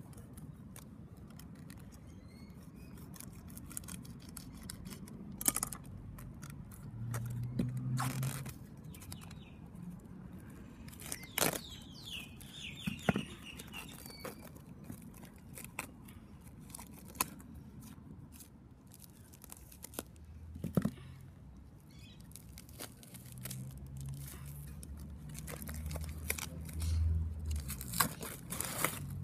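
Plastic wrapping of a compressed coir-peat brick being slit with a knife and torn off, the clear film crinkling, with scattered taps and scrapes against concrete.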